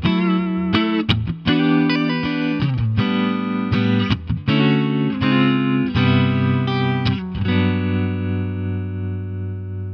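Clean electric guitar, a Suhr Korina Flame played through a Jim Kelley Single-Channel all-tube amplifier with four 6V6 output tubes, playing a phrase of chords and single notes. About three-quarters of the way in a last chord is left to ring and fades away, its volume pulsing slowly from a tremolo pedal.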